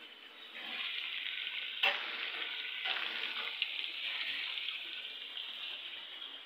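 Chicken frying in hot oil in a wok, sizzling steadily, with two sharp clicks about two and three seconds in.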